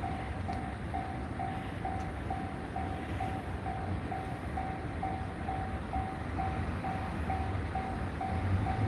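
Japanese railway level-crossing warning alarm ringing its steady electronic ding about twice a second, the signal that the barriers are down and a train is coming. A train's running rumble sounds under it.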